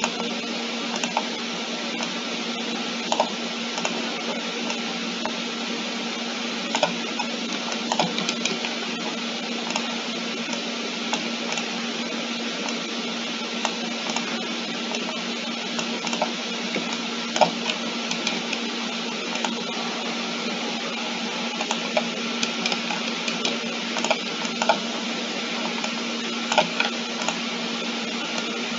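Steady hiss and low hum of a computer recording setup, dotted with scattered short clicks typical of a mouse and keyboard being worked.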